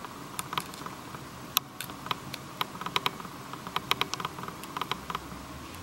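Scattered sharp clicks at an irregular pace from handling a 5th-generation iPod nano: a headphone plug going into its jack and its click wheel being pressed and scrolled, over a faint steady hiss.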